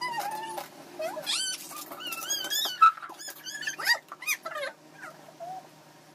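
An animal's high-pitched whining: a run of short, wavering cries that slide up and down in pitch, most of them in the first four seconds.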